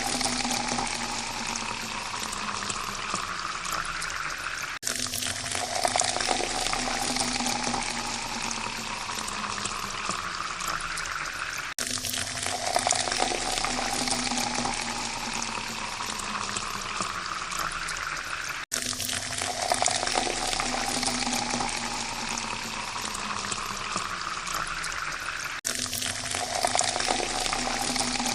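Water pouring steadily into a glass, the pitch of the filling glass rising as it fills up. The pour starts over about every seven seconds, each time after a brief gap, as a looped pour.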